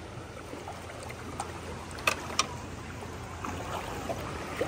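Small boat's motor running steadily over rushing floodwater, with two sharp knocks about two seconds in, a fraction of a second apart.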